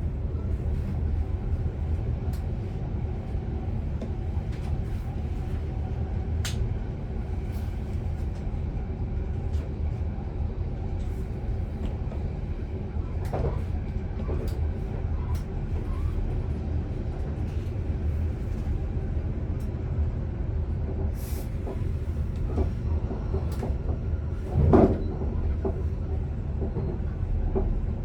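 Commuter electric train running steadily, heard from inside the driver's cab: a low rolling rumble with faint steady motor tones, scattered light clicks, and one louder knock near the end.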